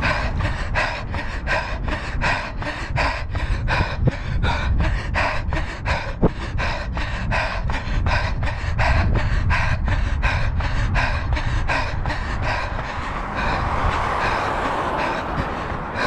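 Runner at a fast tempo pace: heavy panting breath and footfalls in an even rhythm of about three a second, with wind rumbling on a body-worn action camera's microphone. A rush of noise swells briefly near the end.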